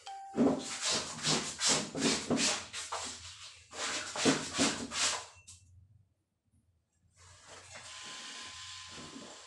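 Wet laundry scrubbed by hand, the fabric rubbed against itself in quick rhythmic strokes, about three a second, in two runs. A brief drop-out follows, then a steady hiss for the rest.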